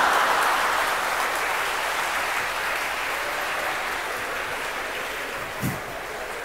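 A large audience applauding and laughing, the applause slowly fading away.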